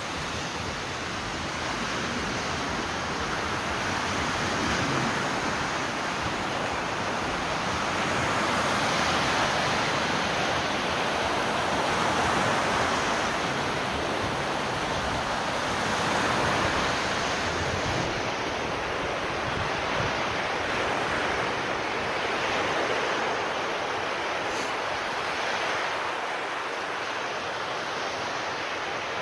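Sea waves washing onto a rocky shore: a steady rush that swells and eases every few seconds.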